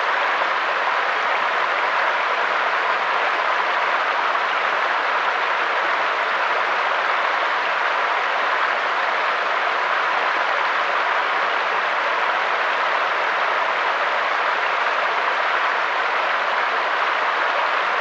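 Mountain stream rushing over rocks: a steady, even wash of water sound, bright and hissy with little low rumble.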